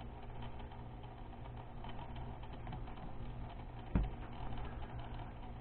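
Faint, light clicking as a small display turntable holding a wooden model truck is turned by hand, with one sharp knock about four seconds in.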